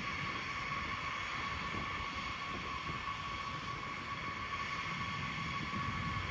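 Turbofan engines of a taxiing B-52H Stratofortress: a steady high-pitched jet whine with two held tones over a low rumble.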